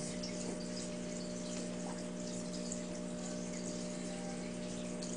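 Steady hum of a small water pump with water trickling underneath, as from a terrarium waterfall or filter.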